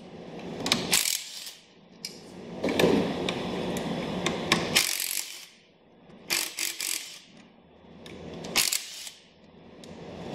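Cordless drill-driver running in several short spells, backing out seat-track bolts, with clicks and metal rattles between the runs.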